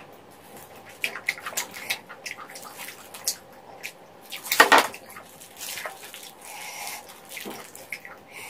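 Close-up wet eating sounds: chewing and lip-smacking on spicy chicken feet, rice cakes and noodles, with a louder slurp about halfway through.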